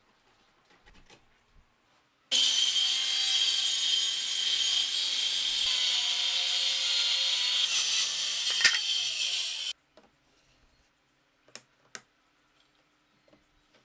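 Electric power saw cutting through wood for about seven seconds, a dense noise with a high whine, beginning about two seconds in and stopping abruptly; a few faint clicks follow.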